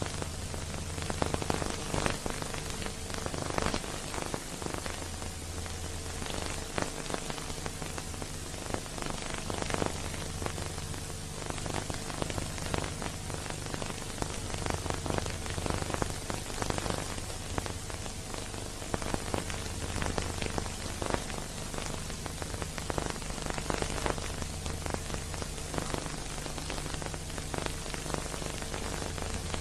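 Steady hiss with frequent crackles and a faint low hum: the surface and transfer noise of an old silent-film copy, with no music.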